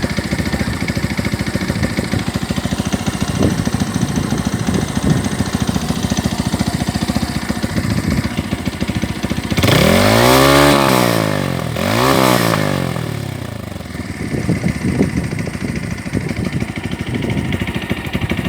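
Stock Motorstar Cafe 150 motorcycle engine idling through its stock muffler, blipped twice about two-thirds of the way in: a longer rev that climbs and falls back, then a shorter one, before settling back to idle.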